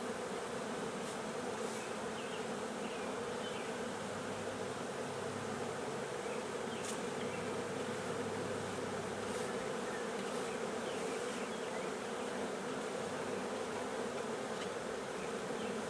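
A swarm of honeybees buzzing in a steady, unbroken hum while being hived into a new box.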